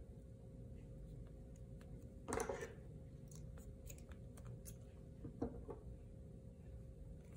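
Faint handling sounds of hand saddle-stitching leather: soft clicks and ticks of needles, thread and pliers, with one brief rustle about two and a half seconds in, over a steady low room hum.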